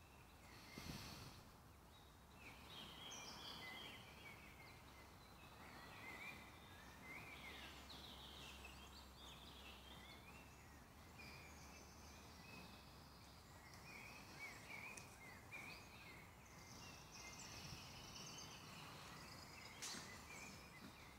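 Faint woodland birdsong: several small birds chirping and trilling over a low background hiss, with a single sharp click near the end.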